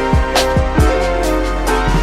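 Background music: an instrumental beat with kick drum, hi-hats and sustained chords.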